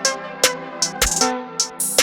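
Background electronic music with a drum-machine beat: sharp hi-hat strikes about every half second over synth tones.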